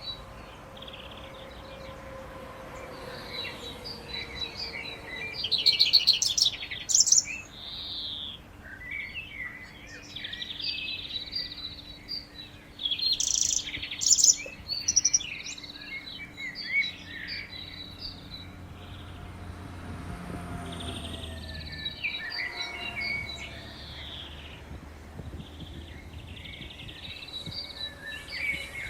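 Birds chirping and singing over the faint, slowly sliding tones of distant outdoor warning sirens, which fall away in pitch over the first several seconds and rise faintly again later on.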